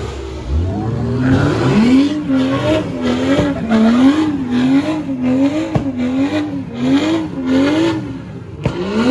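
A car doing donuts at a street takeover: the engine revs up, then is held high while the tyres screech, its pitch rising and falling a little faster than once a second as the car circles. Near the end a sharp new rev cuts in.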